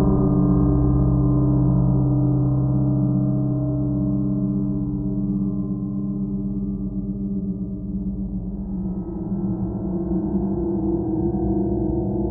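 Ambient drone music: several held, gong-like tones sounding together like a chord, steady throughout, with a higher layer coming in about two-thirds of the way through.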